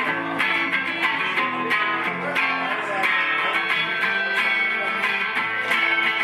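Live solo guitar playing: plucked notes and strummed chords that change about every half second, with no bass below the guitar's range.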